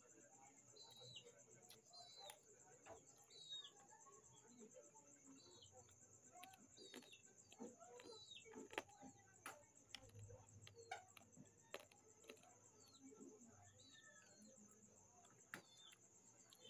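Faint mouth and chewing clicks from eating crispy fried pork. Behind them, short falling chirps about once a second from a bird and a steady high buzz.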